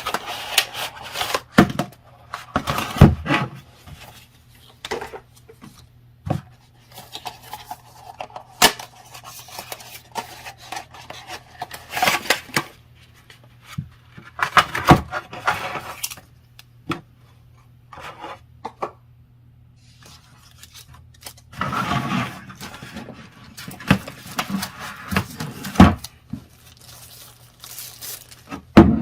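Unboxing a small charger box: irregular rustling, rubbing and scraping of cardboard and plastic packaging, with sharp clicks and knocks as pieces are handled and set down. A faint steady hum sits underneath.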